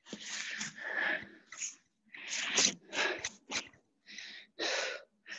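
Hard, rapid breathing of a person straining through sandbag front squats: a string of short, hissing breaths in and out with brief pauses between them.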